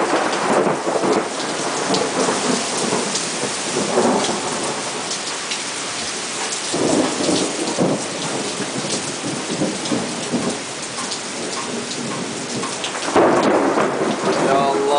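Heavy thunderstorm: steady downpour of rain, with rolls of thunder rumbling through it several times. It grows louder about 13 seconds in.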